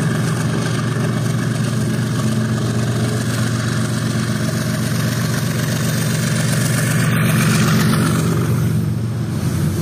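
Diesel-electric freight locomotive running steadily as it hauls a train of loaded wagons, its engine giving a loud, low hum. The sound grows a little louder about seven to eight seconds in as the locomotive passes close by, then eases.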